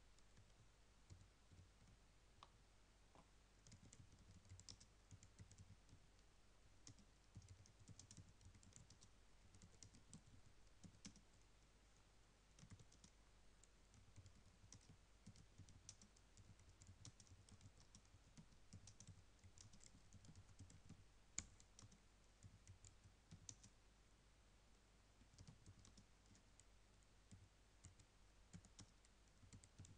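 Faint keystrokes on a computer keyboard: irregular runs of typing clicks, sparse at first and steady from about four seconds in.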